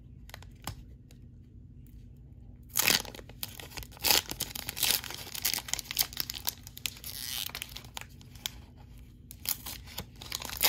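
Foil wrapper of a Mosaic basketball card pack being torn open by hand. It is quiet for the first few seconds, then gives a loud rip about three seconds in, followed by repeated tearing and crackling of the wrapper as it is pulled apart.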